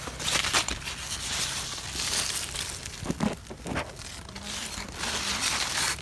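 Rustling and crunching of squash-plant leaves and stems as the plants are pushed through and handled during picking.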